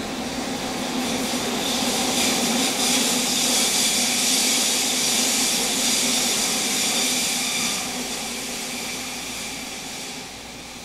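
Inside a JR Kyushu 305 series commuter train running through the subway: a loud rushing hiss swells over the first couple of seconds, holds, and then fades away near the end.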